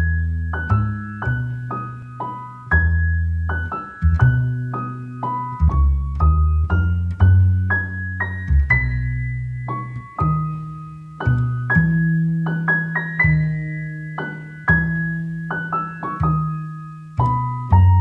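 Background piano music: a steady sequence of struck notes, each fading away, with a melody over low bass notes.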